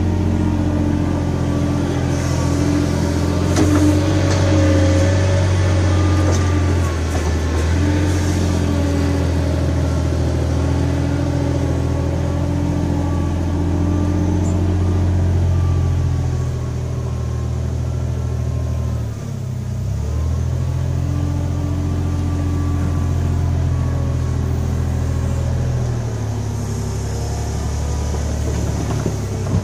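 An engine running steadily at a low pitch, with a brief dip and recovery about two-thirds of the way through.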